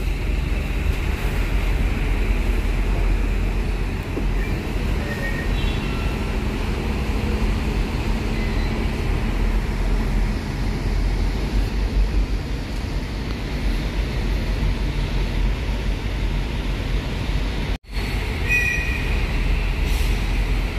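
Steady low rumble of heavy vehicle machinery with constant noise and a few brief, faint high squeaks. The sound cuts out for an instant near the end.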